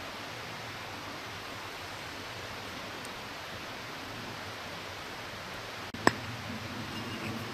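Steady even hiss of outdoor background noise with light handling rustle, and one sharp click about six seconds in as a small metal cap and loading gear are handled at the muzzle of a flintlock muzzleloader.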